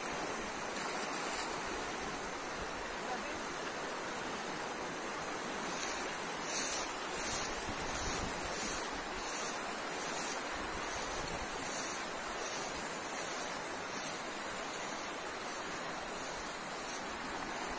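Steady rush of a swollen, fast-flowing river, with wind on the microphone. From about six seconds in, a regular swishing repeats roughly every two-thirds of a second.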